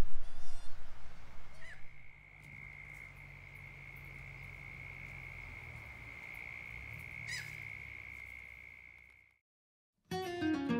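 An animal's single steady high-pitched trill, held for about seven seconds, with one quick falling bird call near its end. Before it there are a few short high bird calls. After a moment of silence, acoustic guitar music comes in.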